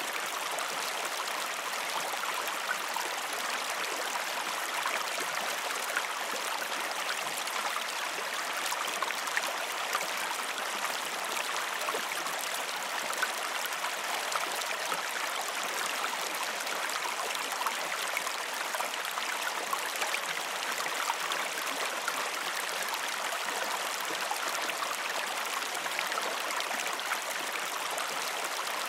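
Creek water running over rocks: a steady, even rush with many small splashes.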